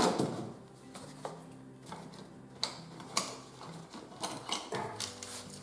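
Scattered light clicks and taps of hands handling the cardboard box that holds a replacement laptop battery.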